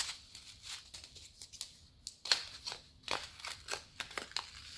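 Small plastic zip bags of square diamond-painting drills being handled and set down, making irregular light crinkles and clicks.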